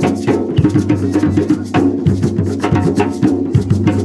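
Gwo ka drumming: several boula drums beaten by hand keep a steady, dense rhythm while a makè drum plays lead over them.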